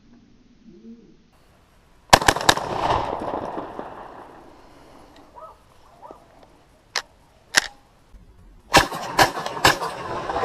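Benelli M2 semi-automatic shotgun fired in rapid strings: three shots within about half a second, two seconds in, and another three near the end, each string trailing off in a rolling echo. Two shorter, sharp cracks come in between, around seven seconds.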